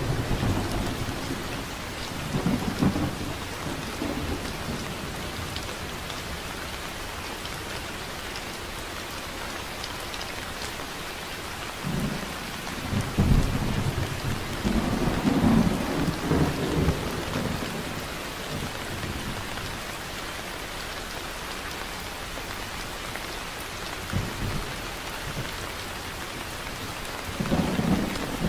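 Heavy rain falling steadily, with rolls of thunder rumbling: one a few seconds in, a longer roll from about twelve to seventeen seconds, and another starting near the end.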